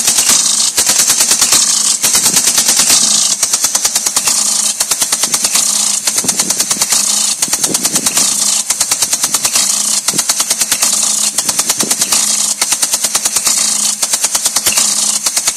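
Impact sprinkler running, its swinging arm knocking in a rapid, even rattle of clicks over the hiss of the water spray.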